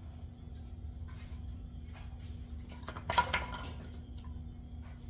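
Kitchen dishes and utensils clinking: a few light taps and one sharper clink with a short ring about three seconds in, over a steady low hum.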